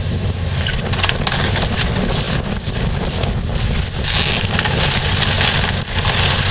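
Hydraulic excavator's diesel engine running steadily while its bucket tears into a wood-frame house: repeated cracking and crunching of splintering timber and clatter of falling debris, busier in the second half.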